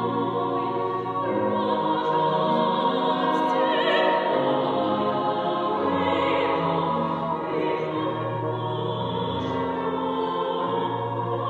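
A female soloist sings in operatic style with wide vibrato over sustained chords from a choir. Her high notes swell out most strongly about a third and about halfway through.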